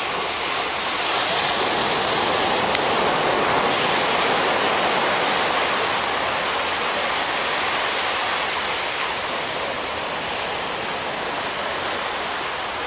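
Small waves breaking and washing up a sandy beach: a steady rushing hiss of surf that swells about a second in and eases a little later.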